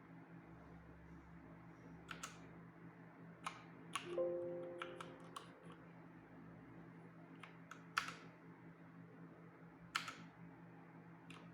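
Single key presses on a Pichau P731 mechanical keyboard with Cherry MX Red switches: about a dozen separate clicks, spaced unevenly as keys are pressed one at a time. About four seconds in, a short low tone sounds and fades.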